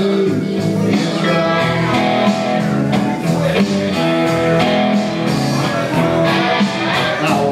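Blues-rock music: a resonator guitar played over a backing band track with a steady beat.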